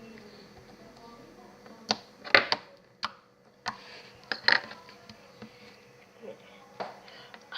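Glue-and-soap slime being worked in soapy hands, giving a string of short, irregular sticky pops and smacks.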